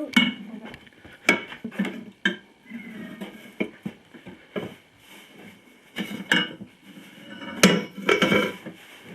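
Metal bar of a manual tire changer clanking and scraping against the rim as it is walked around to pry a garden tractor tire's bead off: a run of irregular metallic clanks that ring briefly, the loudest about seven and a half seconds in.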